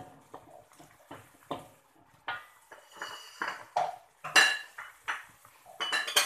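Wooden spatula knocking and scraping against a metal wok while stirring noodle soup: irregular clatters, some with a short metallic ring, the loudest about four and a half seconds in.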